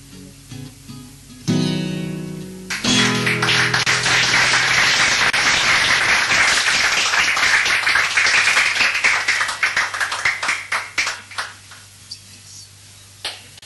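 Acoustic guitar playing soft closing notes, then a final strummed chord about a second and a half in that rings for about a second. The audience then breaks into dense applause that dies away a few seconds before the end, with one last lone clap near the end.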